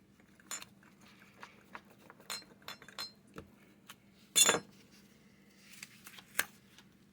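Scattered taps and clinks of small hard tools and objects handled on a workbench, with one louder ringing clink about four and a half seconds in and a sharp click near the end.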